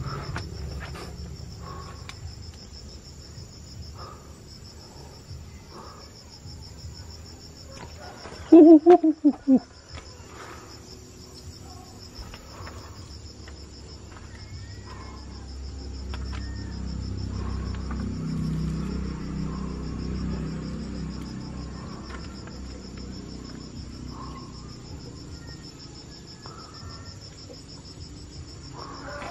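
Crickets chirring in a steady, high-pitched chorus. About nine seconds in, a short, loud burst of four quick pitched calls or squawks cuts through.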